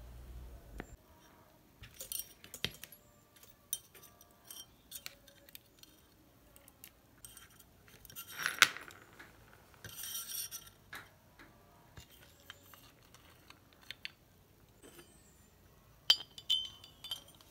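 Metal fan motor parts being handled and fitted together: scattered small clicks and clinks, with a louder knock about eight and a half seconds in and a short scrape soon after.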